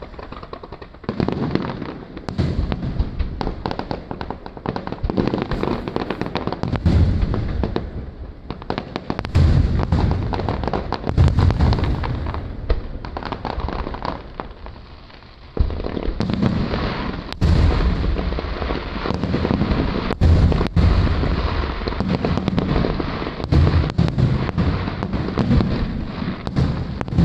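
Aerial fireworks going off in a dense barrage of booms, bangs and crackling, easing briefly about halfway through and then building again.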